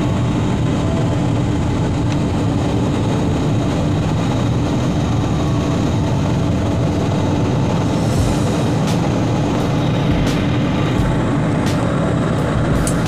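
Steady cabin noise of a jet airliner in cruise, heard inside the cabin by a window seat over the wing: engine and airflow rumble with a low steady hum. A few faint clicks come in the second half.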